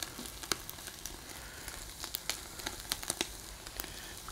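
Skin-on chicken thighs sizzling on a hot charcoal grill, a steady faint hiss broken by scattered sharp crackles and pops.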